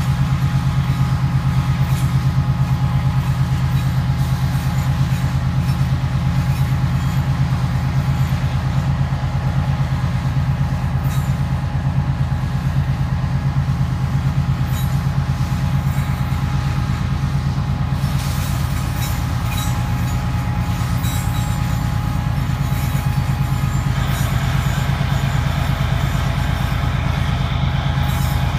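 GE diesel locomotives working at full throttle, a steady deep engine drone, as distributed power shoves a heavy coal train up a grade. Driving wheels slip and grind on the snowy rail, and the grinding grows harsher about three quarters of the way in.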